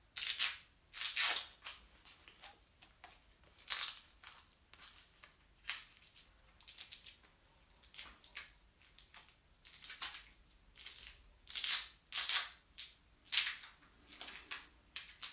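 Bonsai wire being coiled by hand around a wild olive branch: short, irregular scratchy rustles of wire against bark and leaves, roughly one a second.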